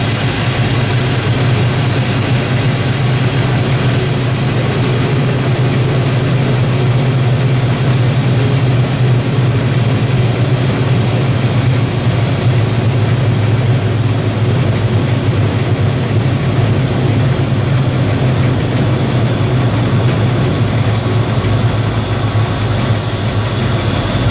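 M62-type diesel locomotive's engine running steadily with a deep, even drone, heard from the driver's cab while hauling a loaded train of tank wagons, with rumbling running and track noise underneath.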